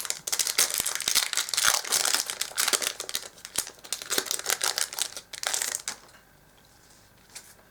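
Foil Yu-Gi-Oh! Duelist Alliance booster pack wrapper being torn open and crinkled, a dense crackling that stops suddenly about six seconds in.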